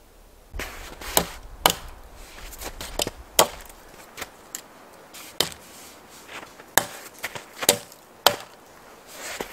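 Hatchet chopping into a dead wooden pole: about eight sharp strikes at irregular intervals.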